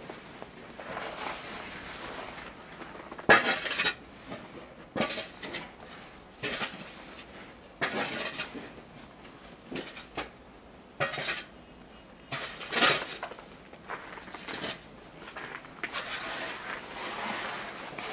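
Footsteps crunching in deep fresh snow, an irregular step every second or so.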